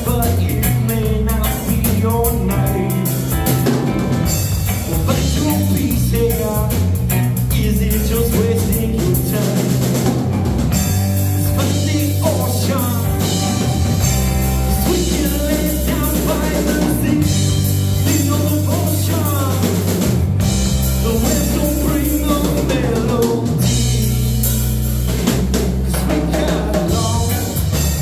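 A rock band playing live: electric guitar, bass guitar and drum kit, with a steady drum beat.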